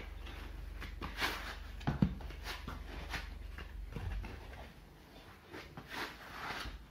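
Foam packing end caps being pulled off a laptop in its black protective sleeve: foam rubbing and squeaking and the sleeve rustling in irregular scrapes, with a sharp knock about two seconds in.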